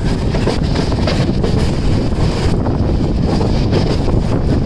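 Steady running noise of a moving passenger train heard from on board, with wind blowing across the microphone.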